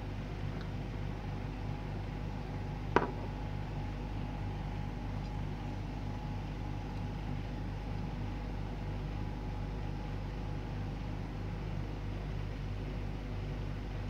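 Steady low background hum with a faint steady higher tone, and one sharp click about three seconds in.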